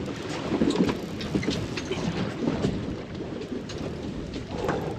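Wind and sea noise on a boat's open deck: a choppy low rumble, with scattered light clicks throughout.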